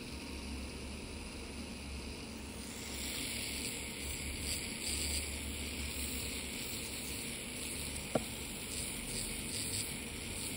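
Podiatry drill with a sanding cap running, then grinding down a corn on the big toe from about three seconds in, adding a high, hissing abrasion over the motor hum. A single sharp click about eight seconds in.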